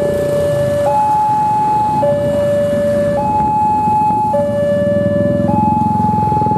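Railway level crossing warning alarm sounding with the barriers down and lights flashing, which signals an approaching train. It is an electronic two-tone signal that alternates low and high, each note lasting about a second. Motorcycle engines idle underneath.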